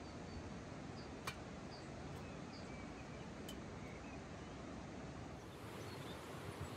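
Steady outdoor background noise with a few faint high chirps in the first half and two sharp clicks, about a second and three and a half seconds in.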